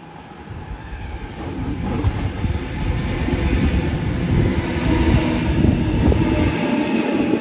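Sydney Trains Waratah electric train approaching and passing close by. It grows steadily louder over the first few seconds to a heavy rumble of wheels on rail, with many short clacks.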